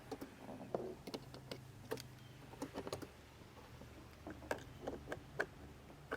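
Faint, irregular small clicks and taps of plastic parts, the power seat switch and its trim cover, being handled and slid into place on the seat, over a low steady hum.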